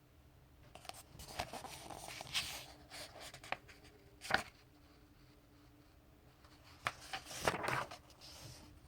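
Paper pages of a comic book trade paperback being turned and handled, rustling in two irregular bursts with a sharp snap of paper about four seconds in.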